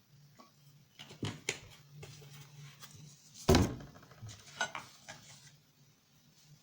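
Kitchen dishes and utensils being handled: a few light clinks, then one loud knock about three and a half seconds in, followed by a few more clinks.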